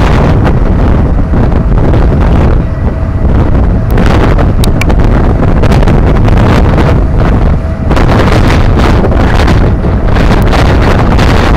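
Strong wind buffeting the microphone on a moving ferry's open deck, a loud steady rumble with a flag flapping close by and snapping now and then; the ship's engine and wake run underneath.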